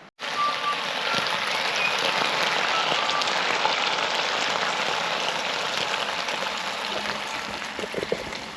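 Food sizzling and crackling in a frying pan on a camp stove, a steady hiss with fine pops, with a few light knocks near the end.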